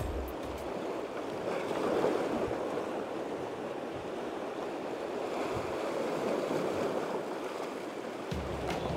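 Sea surf washing and splashing against shoreline rocks, a steady rushing sound that swells and eases.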